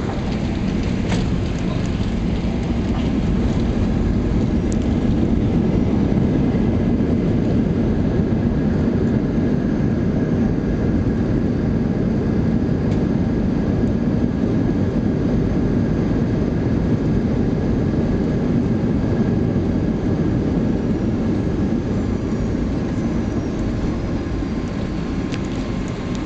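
Jet airliner cabin noise while rolling along the runway: a steady low rumble of engines and wheels with a faint high whine, swelling over the first few seconds and slowly easing toward the end.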